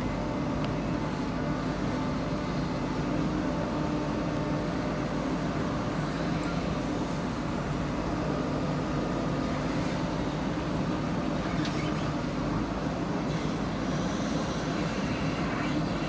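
Diesel engine of a JCB 3DX backhoe loader running steadily at an even pitch.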